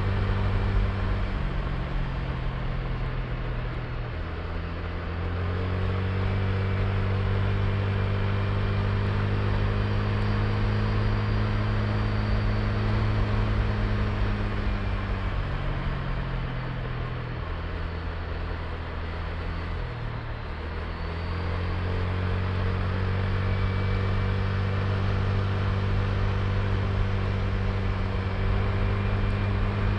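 Honda Click i scooter's single-cylinder engine running under way over a steady rush of wind and road noise. The engine note drops about halfway through, stays low for several seconds, then picks up again about two-thirds of the way in.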